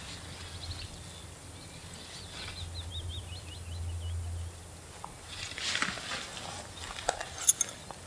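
A small bird sings a short run of high, wavering notes over a low steady background rumble. Later there are a few rustles and two or three sharp clicks.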